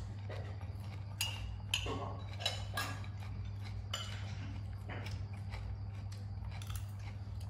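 A spoon clinking and scraping against ceramic plates and a bowl while eating, about half a dozen light knocks over several seconds, over a steady low hum.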